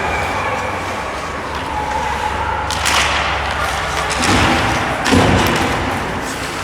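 Ice hockey rink sounds: a sharp crack about three seconds in, then two heavy thuds typical of bodies or the puck hitting the rink boards, over a steady arena hum.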